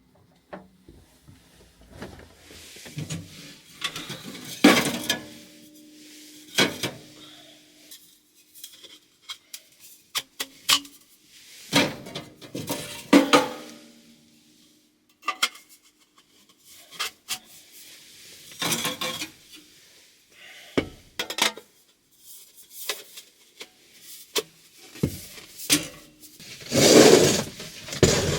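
Irregular clinks and knocks of metal cookware being handled, some strikes ringing briefly, the loudest cluster near the end.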